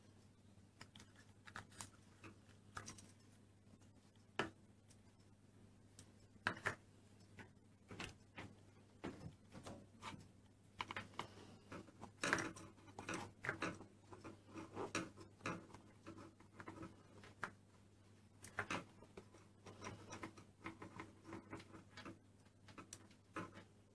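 Light, irregular clicks and taps of small plastic toy pieces and Play-Doh tools being handled and pressed on a tabletop, busiest in the middle, over a faint steady low hum.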